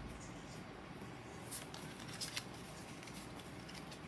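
Pokémon trading cards being slid and flicked through by hand: faint papery swishes with a few light snaps.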